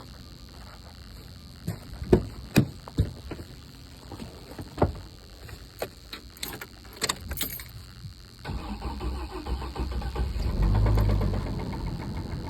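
Several sharp clicks and clunks, then the truck's engine starts about two thirds of the way in. It runs up briefly and settles to an idle with a knock from worn connecting-rod bearings.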